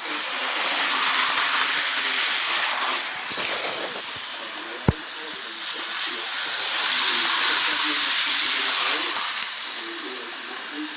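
Hissing in two long swells, with a single sharp click about five seconds in; faint voices underneath.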